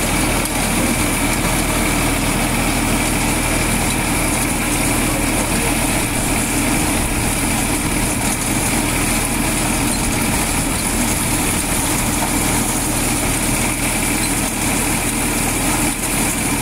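A Valtra tractor's diesel engine running steadily as it drives a PTO corn thresher, with the threshing drum whirring and corn being fed through it.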